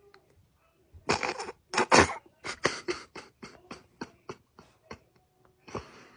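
Stifled, breathy laughter close to the microphone: two loud huffs about a second in, then a run of weaker huffs fading away, and one more near the end.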